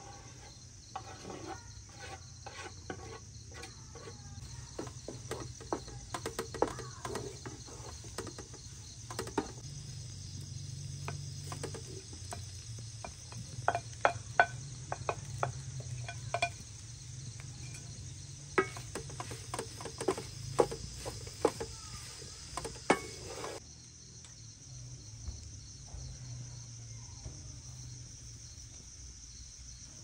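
A wooden spoon and utensils scraping, clicking and knocking against a metal frying pan as food is added and stirred, the clatter dying away near the end. Behind it, a steady high chirring of insects.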